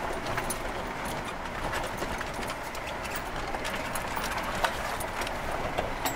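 Jeep driving slowly over a rough dirt trail, heard from inside the cab: steady driving noise with frequent irregular knocks and clatters as the vehicle bounces over the bumps, one sharper knock near the end.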